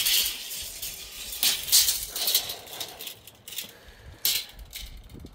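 Footsteps and shuffling on loose wood-chip mulch: a few irregular crunches and scuffs, the loudest about a second and a half in.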